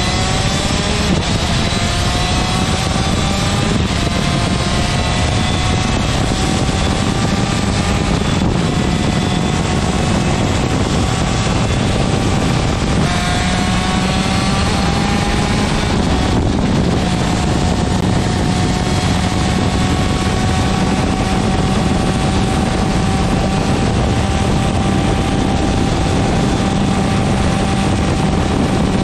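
TM 125cc two-stroke superkart engine at full throttle on track, its revs climbing and dropping back with an upshift about every four seconds, then held on one long pull.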